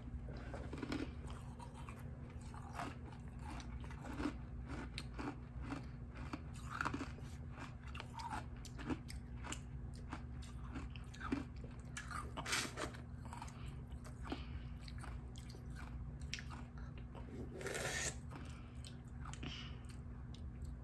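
Two people chewing and biting fresh blackberries and ice popsicles: scattered mouth clicks and bites, with a few louder ones around the middle and near the end, over a steady low hum.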